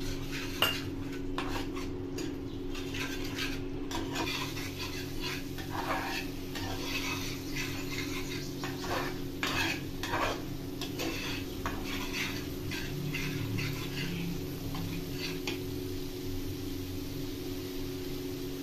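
A metal spatula scraping and knocking against a metal pan, stirring thick masala paste over and over as it fries.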